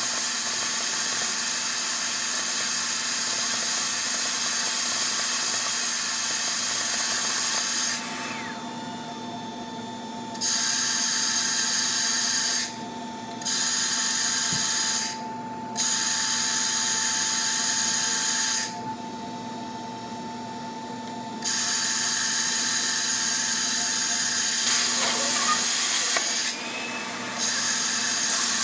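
Handheld plasma cutter arc hissing loudly as it cuts sheet metal. It cuts off sharply five times, for under a second up to about three seconds each, and restarts each time, switched by a foot pedal. During the breaks a quieter steady hum remains.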